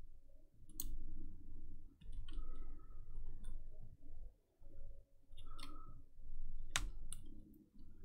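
Small tools tapping and clicking on a keyboard's circuit board during soldering: metal tweezers and a soldering iron tip. There are a handful of sharp clicks, the loudest about a second before the end, over a low handling rumble.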